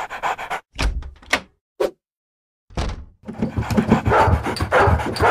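Cartoon sound effects: a few short thuds and knocks separated by dead-silent gaps, then a dense, busy stretch of knocking and scuffling from about a third of the way in.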